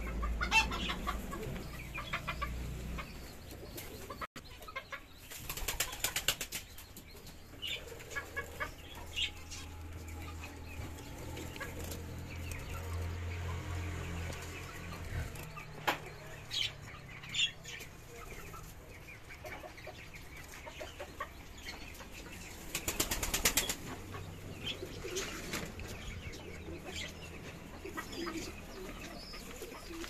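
Caged birds flapping their wings in two loud flurries, about six seconds in and again near twenty-three seconds, with scattered short chirps between.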